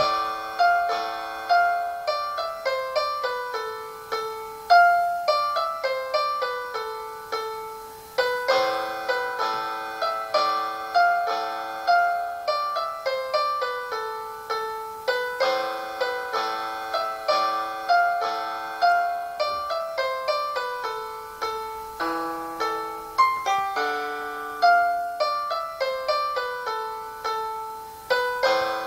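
Piano from an online virtual keyboard, heard through a laptop's speakers and picked up by a phone: a slow melody of single notes and chords, several a second, each struck and left to fade, thin with almost no bass.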